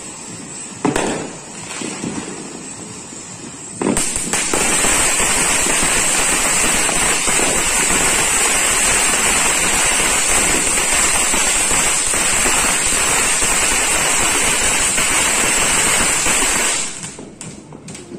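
Ground fountain firework spraying sparks with a steady hiss and a couple of sharp pops. About four seconds in it jumps to a much louder, dense hiss that holds for some thirteen seconds, then dies away near the end.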